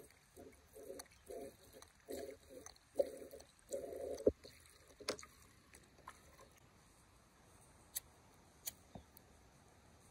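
A plastic squeeze bottle squeezed in short pulses, squirting liquid stove fuel into a small can-type alcohol stove. There are about seven squirts over the first four seconds, then a few light clicks and taps.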